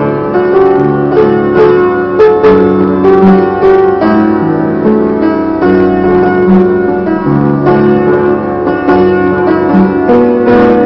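Piano playing a slow hymn tune, with notes held and changing at a steady, moderate pace.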